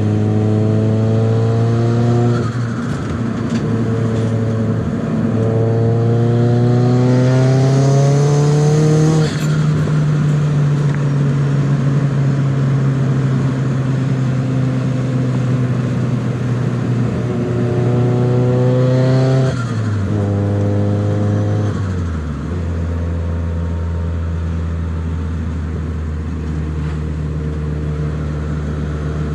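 Turbocharged SR20DET four-cylinder of a Nissan 200SX S14a pulling through the gears, its pitch climbing in each gear and dropping at each shift. Twice the throttle is lifted sharply, with a turbo flutter, and near the end the engine settles to a low steady note.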